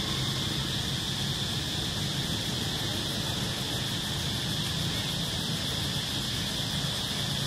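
Steady high-pitched insect drone in the trees, one unbroken tone over a low, even rumble.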